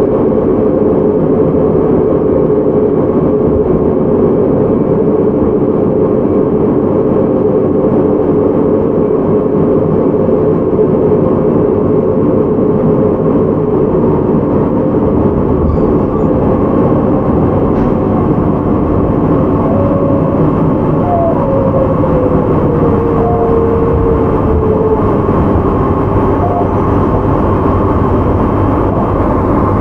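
Interior running sound of a JR Hokkaido 731-series electric train motor car with Hitachi IGBT VVVF traction control: steady wheel-on-rail and motor noise at speed, with a thin electrical tone that glides down in pitch around twenty seconds in.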